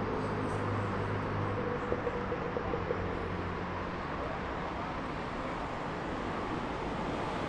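Road traffic: a steady wash of car engines and tyre noise, with one vehicle's engine hum standing out for the first three seconds or so before it fades into the general traffic.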